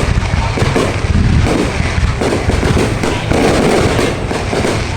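A fireworks display going off in a dense, unbroken barrage of overlapping bangs and crackle, loud throughout.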